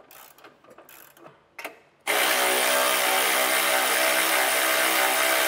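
A hand ratchet clicks faintly for about two seconds. Then a cordless power tool starts suddenly and runs at a steady speed with a whine, spinning an 18 mm nut off a bumper stud.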